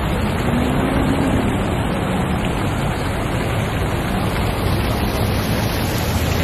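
Steady rushing splash of water falling in a large stone fountain, with a few faint voices in the background.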